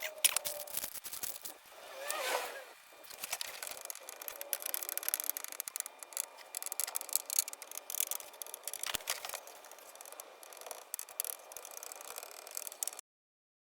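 Irregular scraping and rubbing with scattered small clicks, as of hand work on a surface. It cuts off suddenly near the end.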